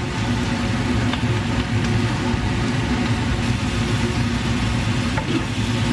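Steady mechanical hum with a hiss over it, the running background of stovetop cooking as onion, capsicum and tomato cook in a pan, with a few faint clicks.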